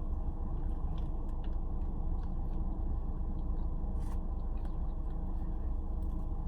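Faint chewing and small clicks of someone eating fast food, over a steady low hum.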